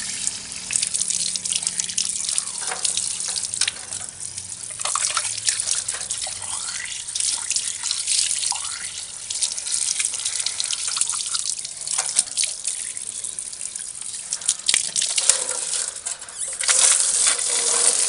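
Water running from a garden hose and splashing over hands and a plastic bird drinking tube as it is rinsed clean, louder near the end.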